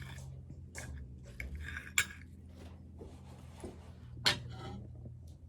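Scattered metallic clinks and knocks, with two sharper knocks about two seconds in and again a little past four seconds, over a low steady hum.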